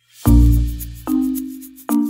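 Background music begins a quarter second in: struck chords, the first with a deep bass note, a new chord about every second.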